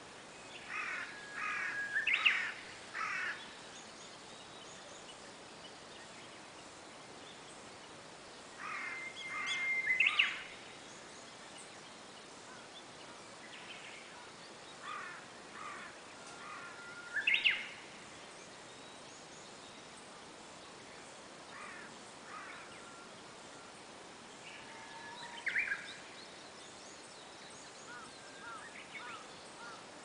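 Japanese bush warbler (uguisu) singing: short phrases of quick repeated notes and a held whistle ending in a sharp upward flourish, repeated every several seconds over a steady background hiss.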